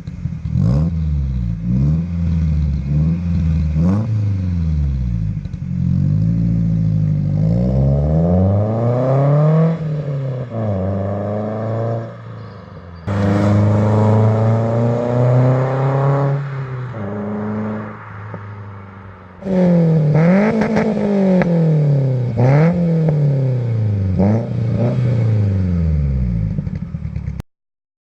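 Peugeot 206 S16's 2.0-litre four-cylinder engine revved up and down repeatedly, heard through a custom stainless half-line exhaust with the intermediate silencer removed and a made-to-measure rear silencer. The pitch climbs and falls over and over, with abrupt changes about 13 and 19 seconds in, and the sound cuts off suddenly near the end.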